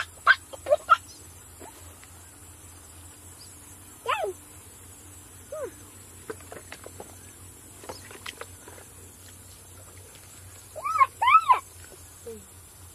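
Chickens calling with short, high, rising-and-falling calls: a few near the start, one about four seconds in, another a second or so later, and a louder cluster of three or four about eleven seconds in.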